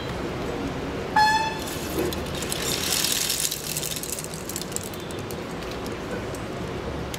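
A single short, loud horn-like toot about a second in, over a steady low outdoor rumble, with a brief rush of hissing noise around three seconds in.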